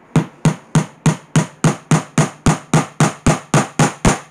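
Hammer tapping a small nail into a strip of wood: a steady run of sharp strikes, about four a second.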